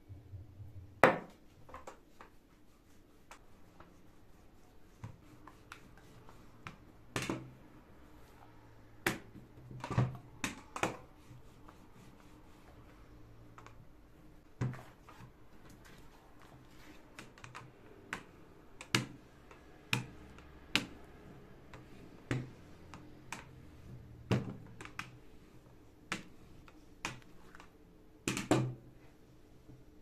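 Scattered light taps and knocks, about one every second or two, from hands handling dough balls and a silicone pastry mat on a countertop. The loudest comes about a second in, and a double knock comes near the end.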